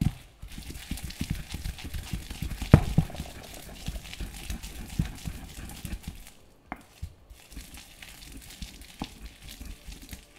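Pestle grinding and pounding ingredients in a mortar: a dense run of soft low knocks and scraping for about six seconds, with one louder knock near three seconds in, then sparser taps.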